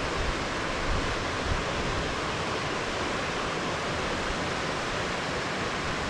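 Whitewater rapids of the Chattahoochee River rushing over rocks: a steady, even wash of water noise.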